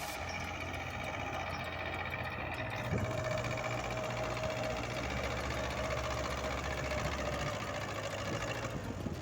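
Small engine running steadily under load, from a snow-clearing machine at work.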